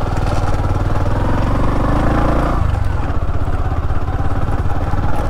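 Bajaj Platina 110's single-cylinder engine running under way on the motorcycle, its revs climbing and then dropping sharply about two and a half seconds in.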